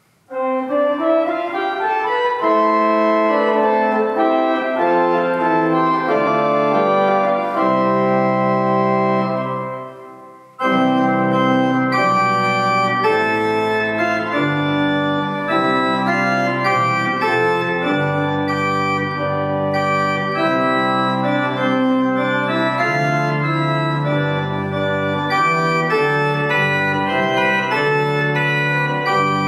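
Vleugels pipe organ playing sustained full chords over held bass notes; the music dies away briefly about ten seconds in, then comes back in at full strength.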